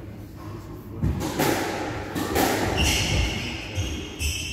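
Squash rally: the ball struck hard by the rackets and smacking off the court walls several times, with short squeaks of court shoes on the wooden floor.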